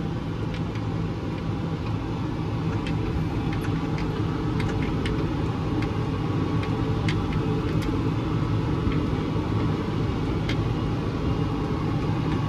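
The six-cylinder diesel engine of a 2013 Case IH Magnum 315 tractor running steadily while driving, a low hum heard from inside the closed cab, with scattered small clicks and rattles.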